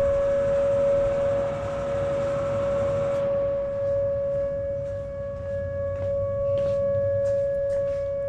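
Outdoor tornado warning siren sounding one steady, held tone at its scheduled Wednesday-noon test. The rushing hiss of a shop fan cuts off about three seconds in.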